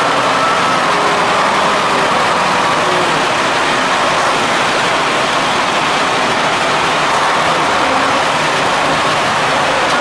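Ural-4320 6x6 truck's diesel engine running steadily under load as the truck crawls through deep mud.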